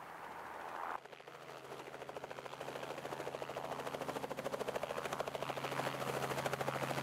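Light helicopter in flight: the main rotor's rapid, even beat over a steady engine hum, starting after a sudden cut about a second in and growing louder.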